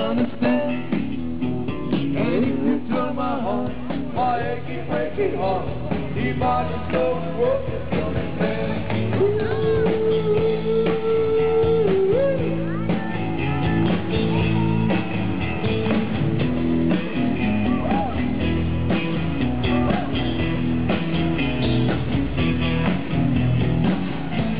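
Live country rock band playing, with electric guitars to the fore and one long held note about halfway through.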